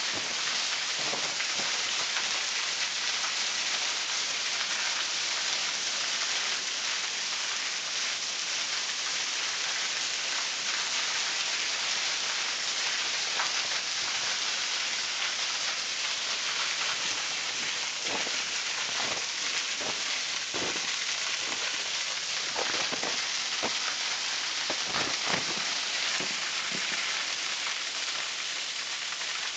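A waterfall's falling water splashing down close by: a steady, even hiss like heavy rain, with scattered louder splashes in the second half.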